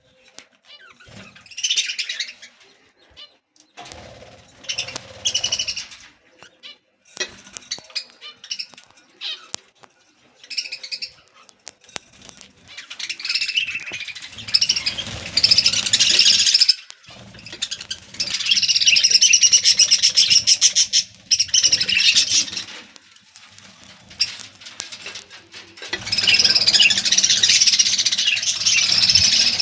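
A colony of budgerigars chirping and chattering: scattered bursts of calls at first, then near-continuous chatter through the second half.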